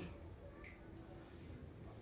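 Near silence: quiet room tone with a faint low hum.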